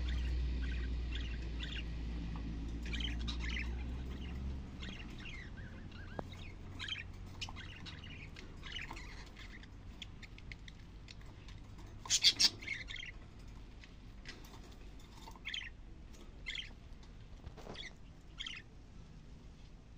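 Budgerigars chirping in short, scattered calls, with a louder double call about twelve seconds in. A low rumble sits underneath for the first few seconds and then fades out.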